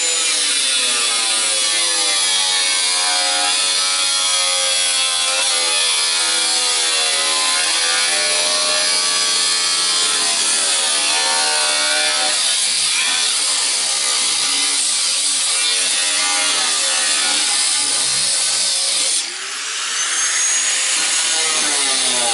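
A power tool cutting into sheet steel, with a steady gritty hiss whose pitch sags and recovers as it is pushed into the metal. A little after 19 s it eases off for a moment, then spins back up with a rising whine.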